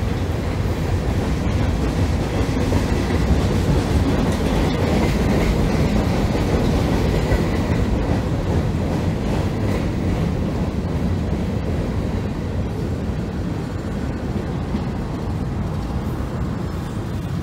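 Empty freight cars of a long train rolling past directly below, steel wheels running on the rails in a steady noise that eases slightly near the end.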